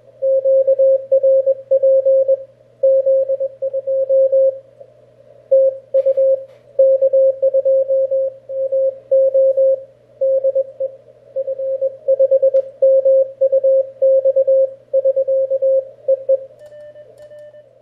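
Morse code (CW) signal from an Elecraft K1 QRP transceiver: a single mid-pitched tone keyed on and off in dots and dashes, over a steady low hum. It is the other station's sign-off, 'TU K2MO DE F5MUX SK', closing the contact. Near the end the keying stops and a fainter steady tone carries on.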